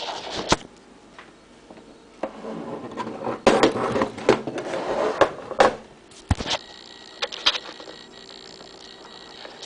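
A plastic time clock terminal being handled and turned over on a wooden table: scraping and rubbing with sharp knocks and clicks. The noise is busiest in the middle, with a few low thuds of the unit against the table.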